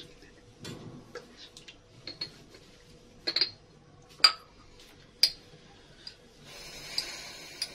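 A metal spoon and dishes clinking off-camera while spices are being readied: three sharp, ringing clinks about a second apart in the middle, with a few fainter ticks and soft handling noise around them.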